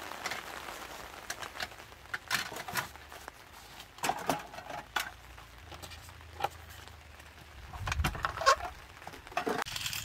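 Rain pattering on a tent flysheet and awning, with scattered knocks and clinks from cooking gear being set out.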